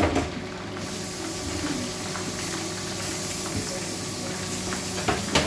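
Chicken pieces deep-frying in hot oil in a wok: a steady sizzle dotted with small crackles and pops, with a sharper click near the end.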